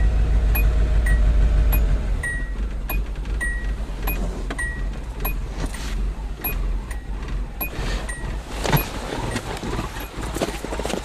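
Old Datsun's engine chugging on a cold start, running rich with the choke sticking on; its rumble falls off about two seconds in as the engine falters, with fouled plugs the likely cause. Over it the car's warning chime dings about once a second, and a single sharp knock comes near the end.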